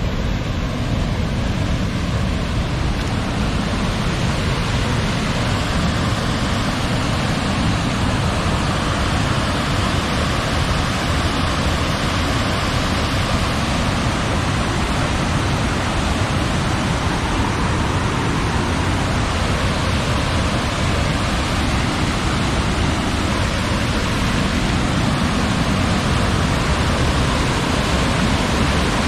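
Mountain stream rushing steadily over rocks, running high after rain.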